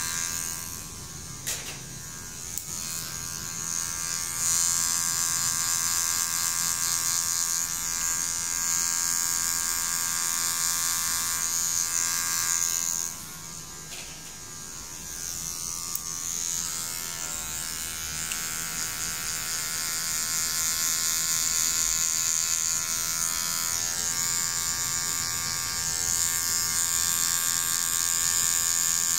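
Cordless hair clipper running with a steady buzz as it cuts hair. It drops quieter for a couple of seconds near the start and again about halfway through.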